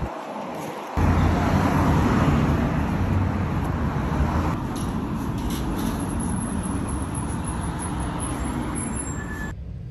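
Steady outdoor road-traffic noise with a heavy low rumble, coming in about a second in and dropping away near the end.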